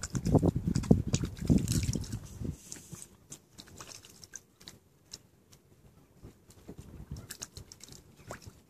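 Mute swan feeding at the water's surface, its bill dabbling and slurping with wet clicks and splashes, busiest for the first two and a half seconds, then scattered fainter clicks.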